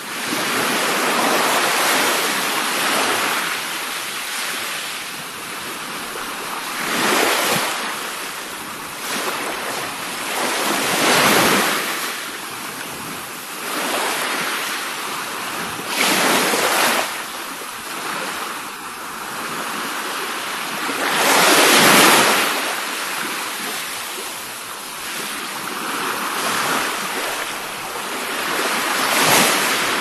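Sea waves breaking and washing ashore in a continuous rush that swells every five seconds or so.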